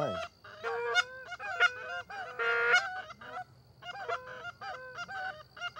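Canada goose honks and clucks: a quick run of short calls with a brief lull about three seconds in, live geese and the hunters' flute-type goose calls mixed together.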